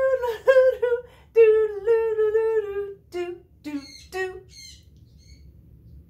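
A voice humming a bouncy 'doodle-loodle-loodle' tune in short notes that step up and down, breaking off into a few shorter, squeakier notes about three to four and a half seconds in.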